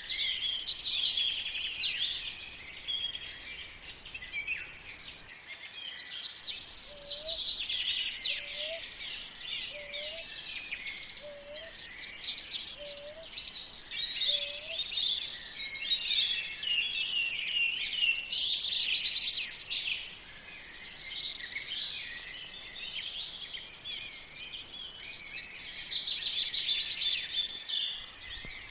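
Many songbirds chirping and singing together in a continuous morning chorus. Through the middle, a lower short rising call repeats six times, about one and a half seconds apart.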